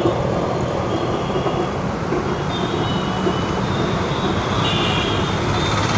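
Lassi being churned with a wooden churning rod in a steel pot: a steady, continuous sloshing and swirling of thick yogurt liquid, with street traffic noise behind it.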